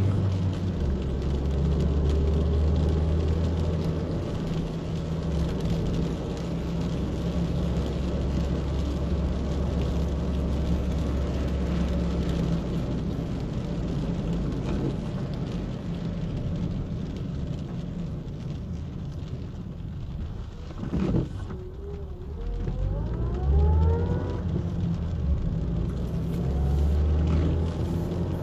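A car being driven on a wet road, heard from inside the cabin: a steady low engine rumble under a hiss of tyres on wet asphalt. About three-quarters of the way through the noise briefly dips, then a rising whine follows as the car picks up again.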